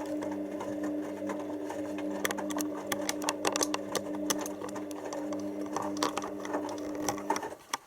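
Hoover DYN7144XD1 washing machine's drum motor running with a steady hum as it tumbles the load, with scattered clicks and knocks from the drum and wet laundry; the motor stops about seven and a half seconds in. The tumbling is part of its load-sensing stage at the start of the pre-wash.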